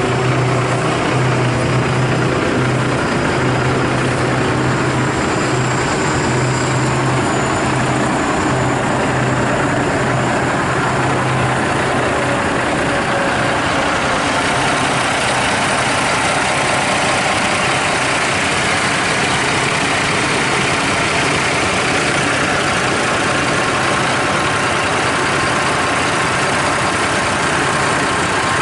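Heavy diesel truck engine idling steadily, a 2009 Volvo VNL300's Cummins ISX inline-six. A steady low hum gives way about halfway through to a broader, hissier sound.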